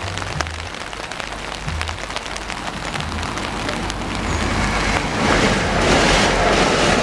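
Heavy rain pattering on an umbrella, with a louder rushing noise building from about four seconds in.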